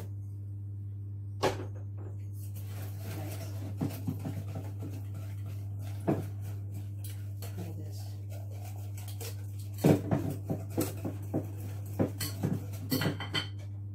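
A spoon stirring pancake batter in a glass bowl, knocking against the glass in scattered clinks that come thick and fast in the last few seconds. Under it runs a steady low hum.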